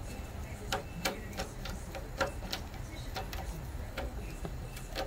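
Scattered light clicks and taps of a screwdriver working among the metal frame, screws and plastic gears of an impact printer's line feed motor assembly, coming irregularly several times a second, over a steady low hum.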